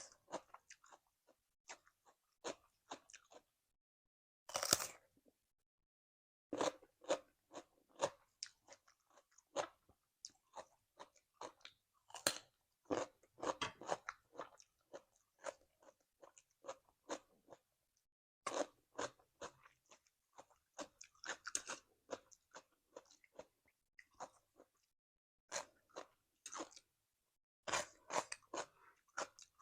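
Close-up eating sounds: crunching and chewing of cucumber salad and fried beef, as irregular bursts of crisp crunches with short pauses between mouthfuls. One longer, louder crunch comes about five seconds in.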